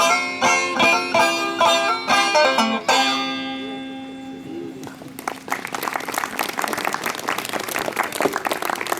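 Closing notes of a plucked acoustic string instrument ending a folk song, the last chord ringing out and fading. About five seconds in, an audience starts clapping and keeps applauding.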